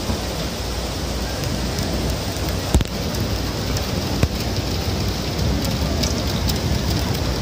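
Heavy rain falling: a steady hiss of rain on hard ground. A couple of brief sharp knocks come through, about three seconds in and again a second later.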